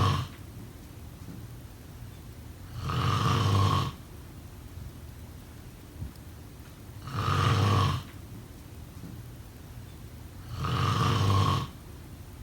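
A person snoring: the end of one snore at the start, then three more, each about a second long and spaced about every four seconds, with quieter stretches between them.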